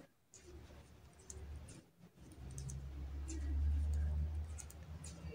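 Light, scattered clicks of circular knitting needles as stitches are knit. A low rumble swells up in the middle and is the loudest sound.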